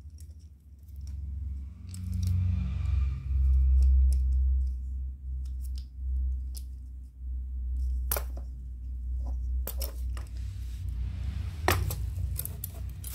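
Metal clicks and clinks of a fretsaw's steel frame and wing-nut blade clamp being handled and fitted together, with sharp clicks about eight seconds in and near the end, over a low rumble of handling.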